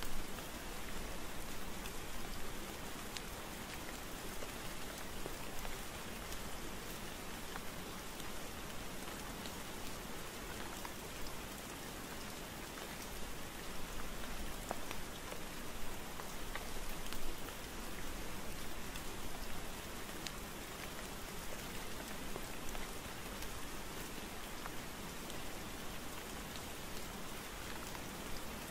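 Steady rain falling: an even hiss with scattered ticks of single drops.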